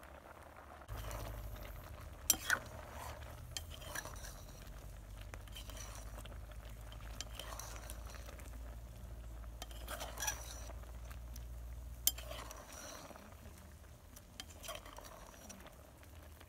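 Long metal ladle stirring a pot of stew with dumplings, clinking sharply against the metal pot several times, with a low steady rumble underneath for most of it.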